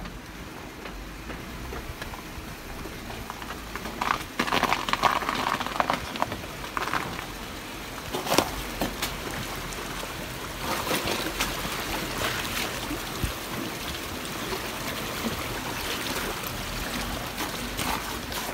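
Creek water running, a steady rushing with scattered splashes and crackles.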